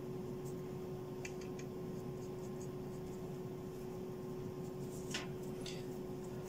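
Steady electrical hum and room noise, with a few faint light taps and clicks about a second in and again near the end.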